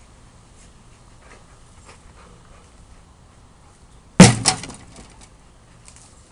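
A thrown SOG Voodoo Hawk tomahawk hits and sticks in a plywood board, making one sharp, loud impact about four seconds in, with a quick smaller knock right after.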